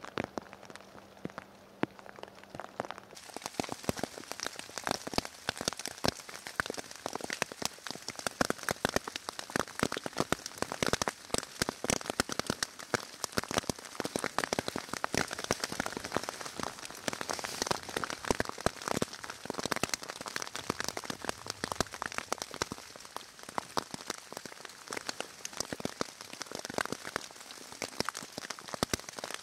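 Steady rain falling, a dense patter of drops that grows louder about three seconds in.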